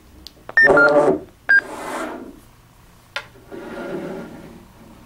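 Hytera PD782 DMR handheld radio keyed up for a private call. Short electronic beeps, about half a second in and again at about a second and a half, mark the start of the call. Between and after them come loud bursts of buzzy, hissy audio from the radio's speaker, with a click about three seconds in.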